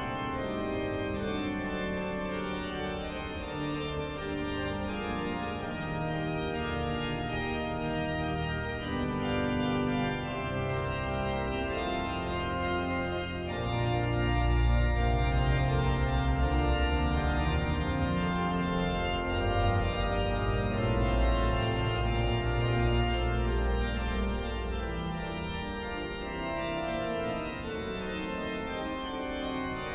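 Church organ playing classical music in sustained chords; deep bass pedal notes come in about halfway through, making it louder, and drop out near the end.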